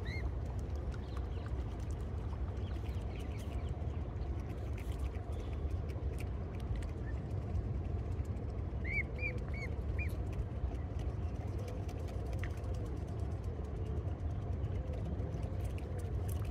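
Outdoor ambience on a wet day: a steady low rumble with faint scattered ticks of light rain. A small bird gives four quick high chirps about nine seconds in.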